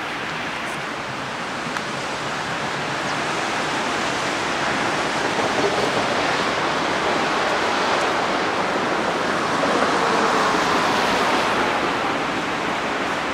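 Steady hiss of city traffic on wet roads, growing louder for several seconds in the middle as vehicles pass.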